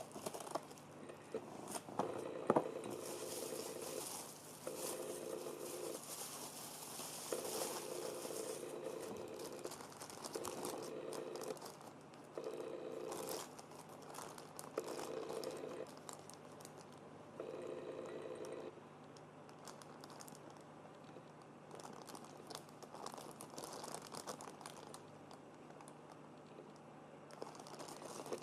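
Crinkling and clicking of small parts and plastic being handled, with a steady low tone that comes and goes in about seven stretches of a second or so each.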